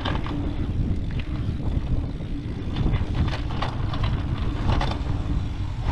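Mountain bike being ridden fast along a rough dirt trail. Wind rumbles over the microphone, tyres run on dirt, and the bike rattles and knocks repeatedly over bumps.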